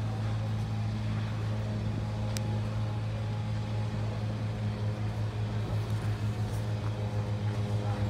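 An engine running steadily at idle: a constant low hum with a regular throb that becomes more distinct in the second half.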